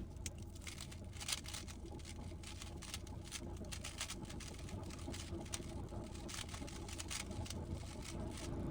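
Rubik's cube clicking irregularly as it is handled and turned, several clicks a second, over a steady low hum.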